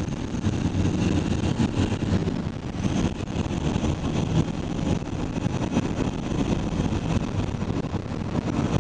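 Car driving at speed, heard from inside the cabin: a steady low rumble of road and engine noise, with some wind on the microphone.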